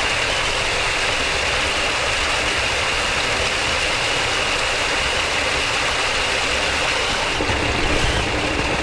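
Steady rush of water pouring into a fish pond like a small waterfall, with a low uneven rumble underneath.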